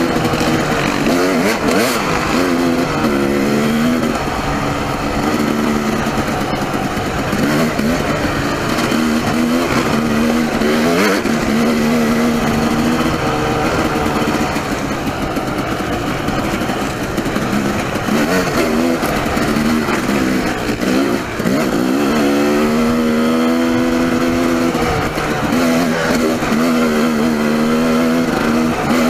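Dirt bike engine under way on a rough, rocky trail, the revs climbing and falling off again and again with throttle and gear changes, now and then held steady for a few seconds, with a brief drop about three quarters of the way through.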